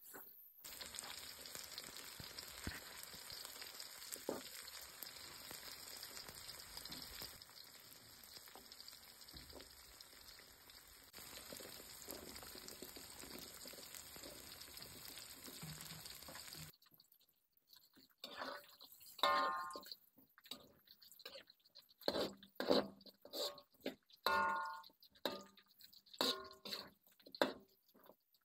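Food frying in hot oil, a steady sizzle that changes level abruptly a couple of times. After about 17 seconds it stops and gives way to a run of separate knocks and clatters, some with a short ringing tone.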